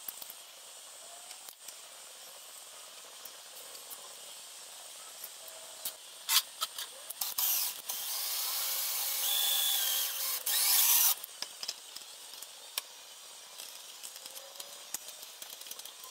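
Ryobi cordless drill running: a few short bursts, then a steady run of about three seconds that stops abruptly. Small metallic clicks of parts being handled come before and after it.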